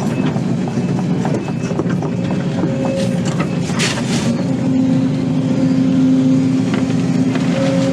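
Excavator diesel engine running hard under load, with a steady note that grows stronger in the second half. A few sharp cracks come about three to four seconds in.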